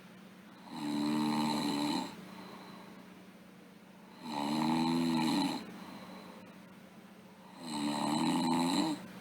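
A sleeping girl snoring: three even, low-pitched snores, each a little over a second long, about three and a half seconds apart.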